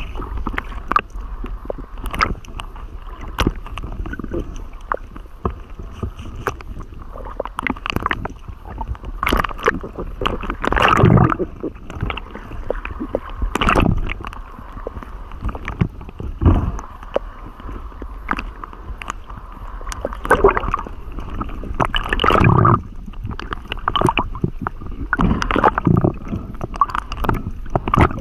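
Water gurgling and sloshing in irregular swells, with many scattered sharp clicks.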